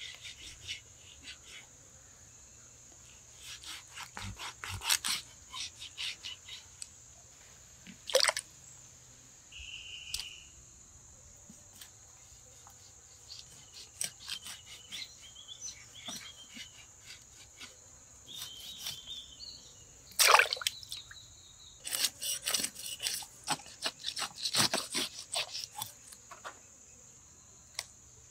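Sharp clicks and scrapes in irregular bursts from a fish being worked on a wooden chopping board, over a steady high chirring of crickets.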